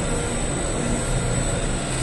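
Bakery dough-sheeting machine running steadily: a constant mechanical drone with a thin high whine over it.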